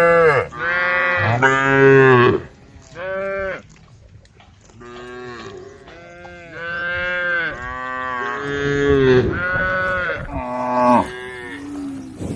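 Cows mooing one after another, a string of drawn-out calls at different pitches that sometimes overlap, the loudest in the first couple of seconds.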